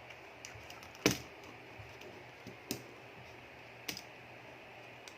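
Small sharp clicks and taps of a tool and parts against a mobile phone's plastic housing during disassembly, four of them spread out, the loudest about a second in.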